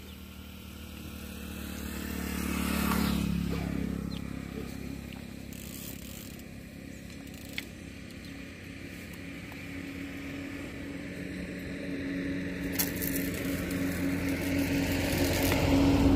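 A motor engine's steady hum that swells about three seconds in, eases off, then grows louder again toward the end. A single sharp click comes about halfway through.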